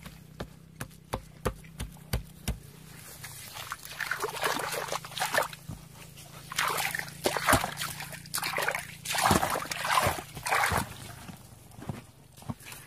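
Hands squelching in wet mud with a quick run of short knocks, then muddy water sloshing and splashing in irregular bursts as a hand works at the mouth of a plastic tank trap lying in the water.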